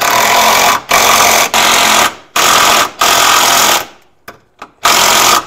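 Cordless impact wrench hammering bolts into the car's unibody to secure the control arm bushing bracket. It runs in about six loud bursts of half a second to a second each, with a longer pause near the end.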